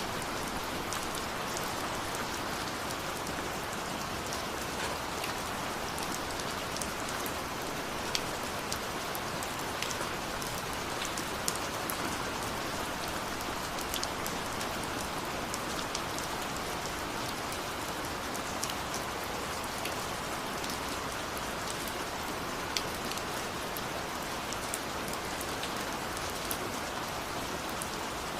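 Steady rain falling, a constant hiss with scattered sharp drop ticks through it.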